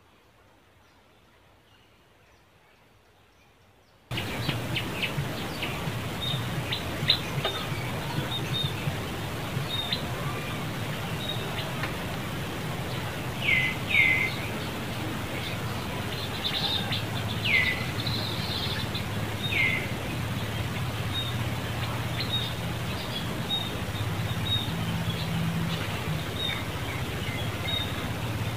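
About four seconds of near silence, then outdoor ambience: a steady low hum with scattered light clicks and a few short, high chirps that drop in pitch, in two pairs in the middle stretch.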